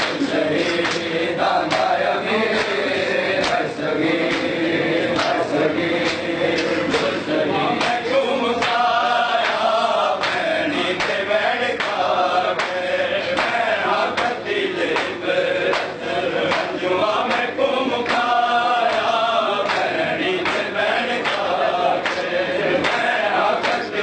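A group of men chanting a noha, a Shia Muharram lament, together in phrases that rise and fall, with repeated sharp slaps of hands on chests (matam) keeping time.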